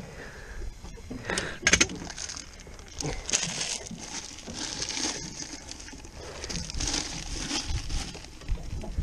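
Thin plastic bags crinkling and rustling as they are scrunched and handled in a plastic bucket, with a brief clatter about two seconds in.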